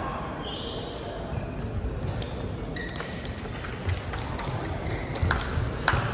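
Basketball game on a hardwood court in a large sports hall: sneakers squeak several times on the floor, with a few thuds of the ball.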